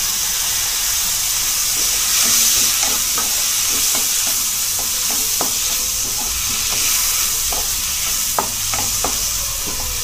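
Chopped tomatoes, onions and green chillies sizzling in hot oil in a non-stick frying pan, stirred with a wooden spatula, with a steady hiss and scattered light clicks and scrapes of the spatula against the pan.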